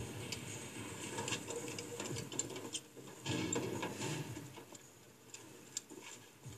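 Metal latch mechanism on a riveted metal door being worked by hand, giving a run of irregular ratcheting clicks and rattles, loudest a little past the middle and thinning out towards the end.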